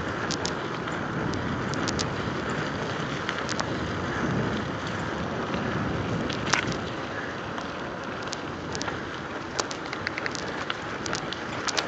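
Mountain bike rolling over wet asphalt: a steady rushing hiss of tyres and moving air, with scattered sharp clicks and rattles.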